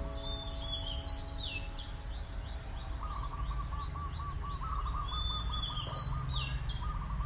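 Small birds singing outdoors: a short high whistled phrase heard twice, a steady run of brief high chirps, and from about three seconds in a rapid lower trill, over a low steady background hum of the outdoors.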